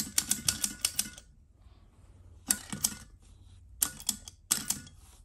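1950s Linemar tin wind-up Casper toy's clockwork hopping mechanism clattering in bursts of rapid clicks that start and stop four times: the mechanism sticks, so the toy keeps stalling.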